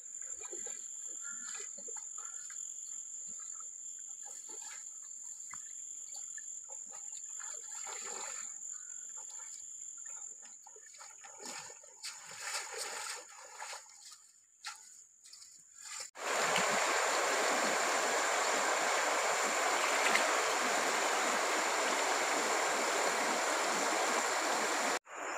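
Footsteps on gravel and splashing as people wade through a shallow stream. About two-thirds of the way in, this gives way to a loud, steady rush of river water flowing over a shallow rocky riffle, which cuts off suddenly near the end.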